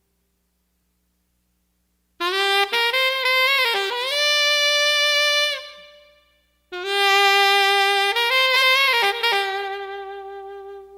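Music: a single melody instrument playing two phrases of stepped notes. The first phrase comes in about two seconds in, and the second follows after a brief pause.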